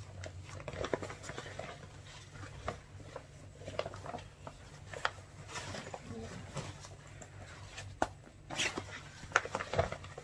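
Rustling and crinkling of a Li-Ning badminton bag's fabric and silver insulated lining as hands pull the compartment open and feel inside, with scattered soft clicks and louder handling near the end. A steady low hum runs underneath.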